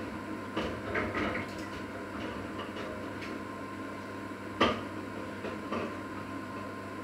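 Dishes and kitchenware handled at a sink: a few light knocks and clinks, with one sharp clank about four and a half seconds in, over a steady hum.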